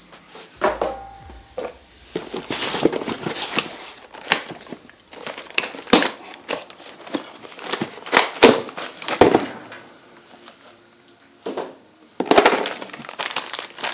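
Packing material crinkling and rustling as machine parts are unwrapped from their boxes, in repeated bursts with a few sharp knocks from the parts being handled.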